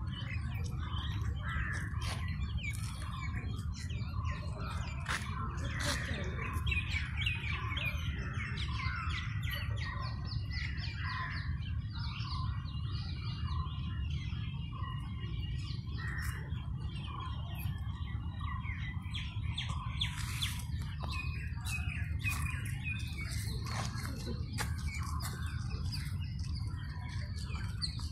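Many birds chirping and calling at once, a running chorus of short, overlapping high notes, over a steady low rumble.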